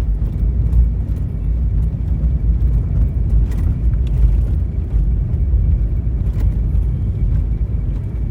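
Steady low rumble of engine and tyre noise from inside a vehicle's cabin while driving on a snowy road, with a few faint ticks.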